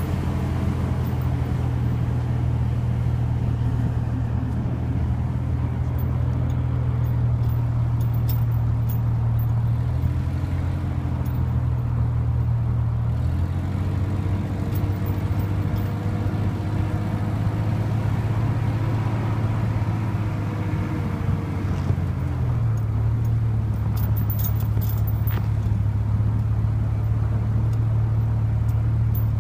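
Truck engine running steadily while towing a snow-grooming drag over a snow track, with a low drone whose pitch shifts a few times as the speed changes, under a steady noise of tyres and wind.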